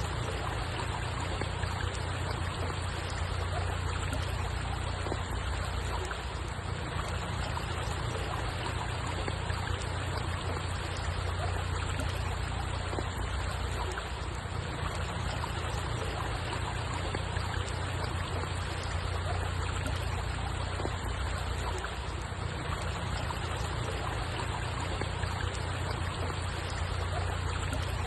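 Steady running water: an even, unbroken rush with a strong low rumble.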